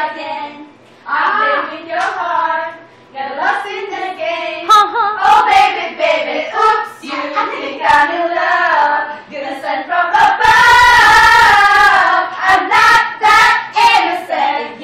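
Several women's voices singing loudly together, with a long high-pitched cry held for about two seconds around ten seconds in, and a few sharp claps.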